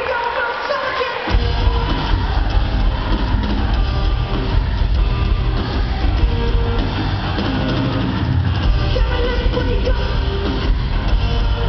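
Rock band playing live with singing and guitars. The bass and drums are nearly absent at first and come back in full about a second in.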